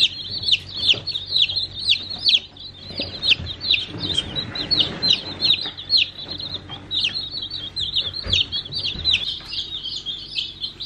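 A brood of day-old chicks peeping nonstop: many high, short peeps overlapping, each sliding down in pitch, with a couple of brief lulls.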